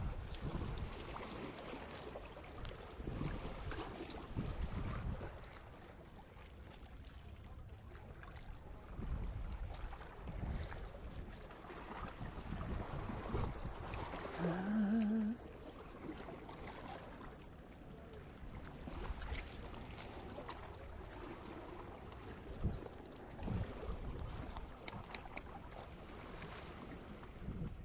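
Wind rumbling and buffeting on the microphone over the wash of surf on a beach, with a brief rising tone about halfway through.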